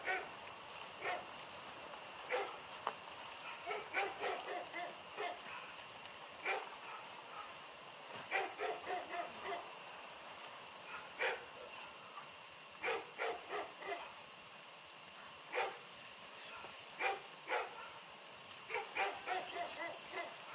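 Dog barking on and off, single barks and quick runs of barks at irregular intervals, over a faint steady hiss.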